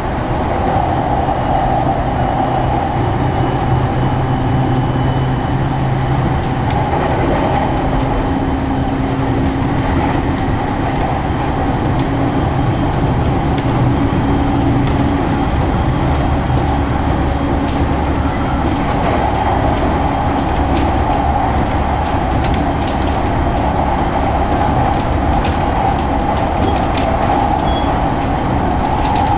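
Interior of an electric commuter train running at speed: steady rumble of wheels on the rails, with a low hum that drops lower about halfway through.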